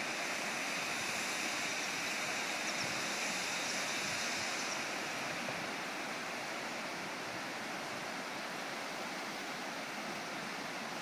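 River water rushing over rocks and shallow rapids, a steady even rushing noise.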